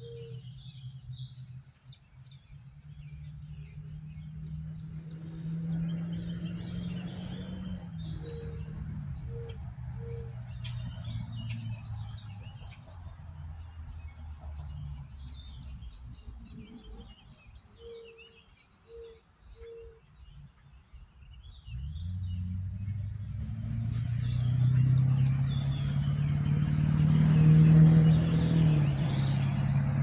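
Small birds chirping and singing, with a rapid high trill heard twice and a few short low calls in groups of three, over a steady low hum of distant traffic. From about two-thirds of the way through, a motor vehicle approaches and grows louder until the end, drowning out the birds.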